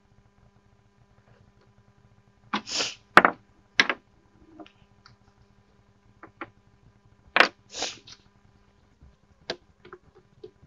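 Handling noises while topping up a small mower engine with oil: sharp clicks and knocks from a plastic oil jug and its spout, and two short hissing rustles, about three and eight seconds in.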